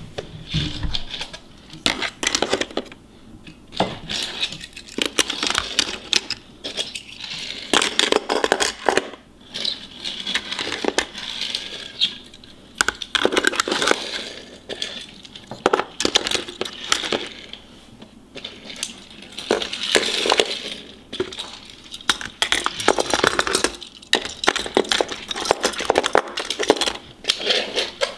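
Die-cast metal toy cars clicking and clacking against the hard plastic slots of a toy car-carrier case as they are pushed in one after another, in little clusters of clicks every second or two.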